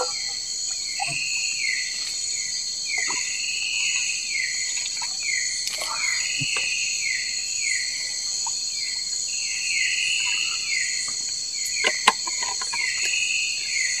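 Night-time tropical forest insect chorus: a steady high drone of crickets and other insects, with a falling chirp repeating about twice a second. A few light clicks stand out.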